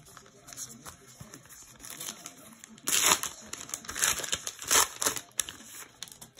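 A card pack's foil wrapper crinkling and tearing as it is handled and torn open, with the loudest rustling bursts about three and five seconds in.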